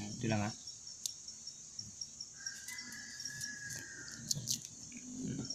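Cricket chirping in a steady, rapid high pulse, with a faint held whistle-like tone for about a second and a half midway.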